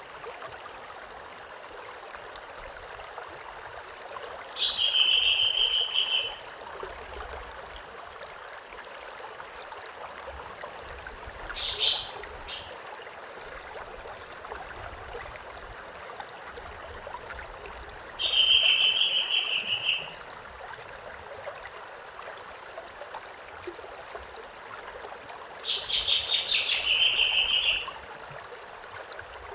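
A stream running steadily, with a songbird singing a short buzzy trill four times, each phrase one to two seconds long and coming about every seven seconds.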